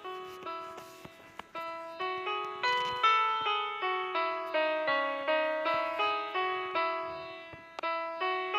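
Background piano music: a gentle melody of single notes, each fading after it is struck.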